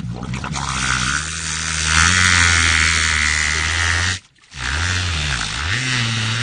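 Low, buzzing motor-like drone with its pitch dipping and recovering about five seconds in, under a rushing hiss that is loudest around two to four seconds in; the sound cuts out briefly just after four seconds.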